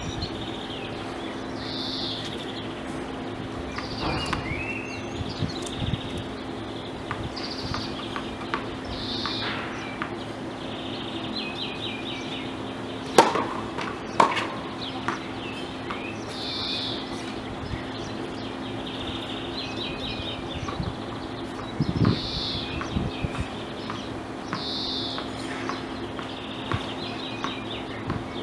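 Birds singing with short repeated chirps throughout, over steady outdoor background noise. Sharp tennis ball hits stand out near the middle, two about a second apart, with a few more later on.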